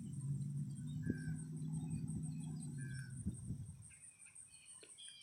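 Field insects trilling steadily at a high pitch, with scattered bird chirps, over a low steady hum that fades out about four seconds in.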